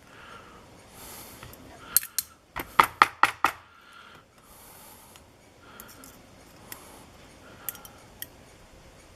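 Small metal lock parts clicking and clattering against a hard surface as the lock is taken apart: a quick run of sharp clicks about two to three seconds in, then a few lighter ticks near the end.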